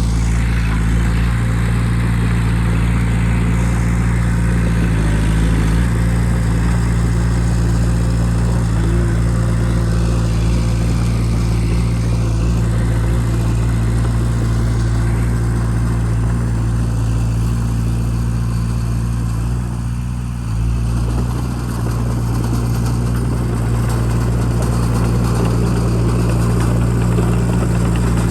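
Bulldozer's diesel engine running steadily under load, with a brief dip in level about twenty seconds in.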